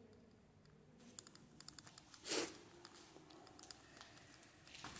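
Faint scattered light clicks and crackles, with one louder scuff or knock a little past two seconds in.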